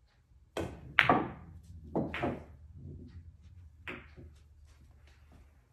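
Pool shot: the cue strikes the cue ball and billiard balls clack together, followed by a series of sharper knocks as balls hit the cushions and the 1 ball drops into a corner pocket, with balls rolling on the cloth in between. The loudest clack comes about a second in.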